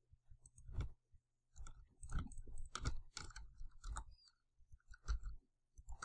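Faint, irregular clicking of a computer mouse and keyboard, about seven or eight separate clicks, over a low steady hum.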